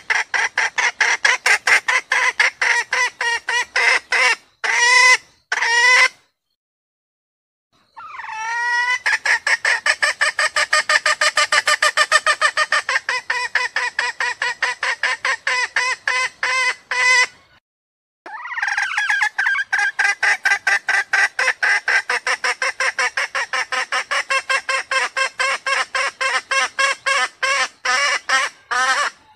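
Junglefowl hen calling in long runs of rapid, pitched clucks, several a second, in three runs with short breaks between them. This is the call of a hen in breeding condition summoning a cock, as used in hunters' lure calls.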